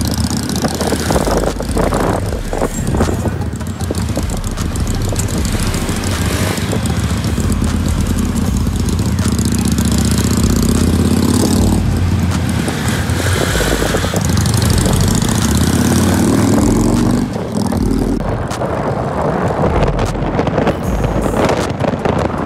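Small motorcycle engine running under a rider and passenger in traffic, its pitch rising twice as it speeds up, once about the middle and again a little later, heard from the pillion seat.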